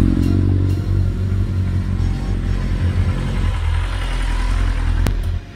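Steady low engine drone from a motor vehicle running. There is a sharp click about five seconds in, and the drone cuts off suddenly just before the end.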